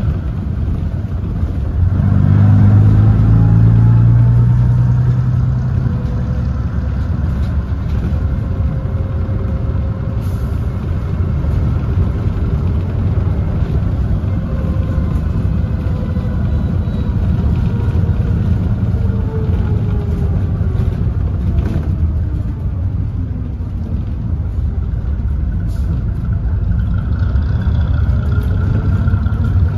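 Leyland diesel engine of a Bristol RE single-decker bus under way, heard from inside the saloon: a loud low drone that swells about two seconds in, then runs on with its pitch rising and falling.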